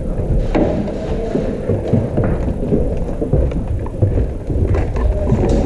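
Close, irregular dull thumps and knocks, dense and low-pitched, from a player moving about with the camera.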